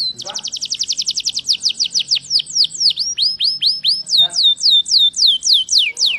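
Domestic canary singing a loud, continuous song of rapid trills, each note a quick downward-sweeping whistle. A very fast trill gives way around the middle to slower, deeper swoops, then speeds up again.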